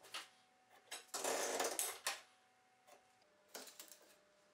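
Pencil scratching marks onto beech wood along a rule, with light taps of the rule and pencil on the wood. One longer stroke lasts about a second, with shorter ones before and after.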